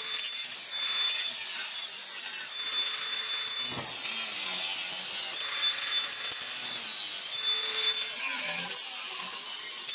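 Angle grinder cutting into an exhaust pipe along a marked line: a steady hissing grind with a thin high whine that comes and goes several times.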